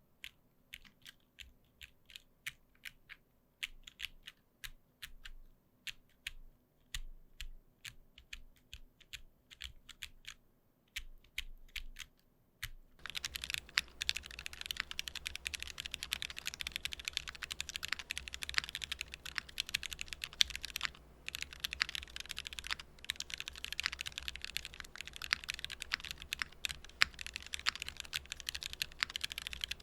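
Custom gasket-mounted mechanical keyboard with an aluminium plate and C3 Equalz Tangerine linear switches being typed on: separate single keystrokes, roughly two a second, for the first dozen seconds or so, then fast continuous typing about thirteen seconds in.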